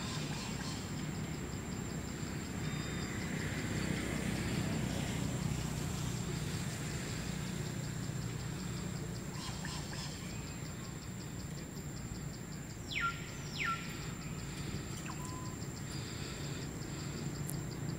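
Outdoor ambience of distant road traffic, a steady low rumble. About 13 seconds in, two quick falling whistles sound half a second apart.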